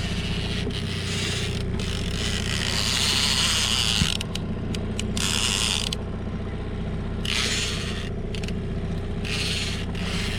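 Fishing reel cranked in several bursts of a second or two, its gears and clicker ratcheting, over the steady hum of the boat's motor.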